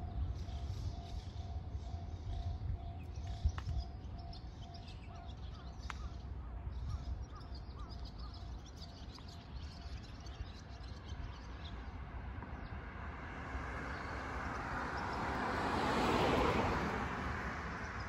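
Small birds chirping during the first several seconds over a steady low rumble, then the noise of a passing vehicle swells to a peak near the end and fades.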